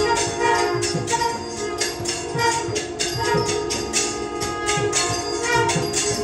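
Traditional temple music: steady held tones under fast, regular jingling percussion strokes.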